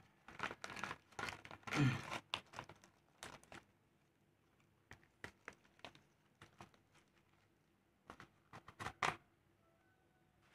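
Dry and fresh sal leaves crinkling and rustling in the hands as they are folded around marinated chicken into a leaf parcel: clusters of short crackles with quiet pauses between.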